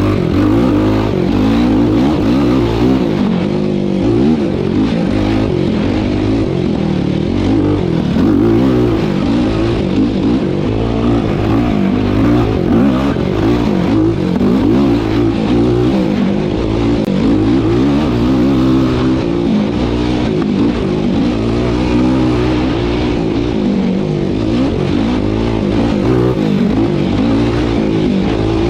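Yamaha YFZ450R SE sport quad's single-cylinder four-stroke engine running hard under way, its pitch rising and falling constantly as the throttle is worked on and off.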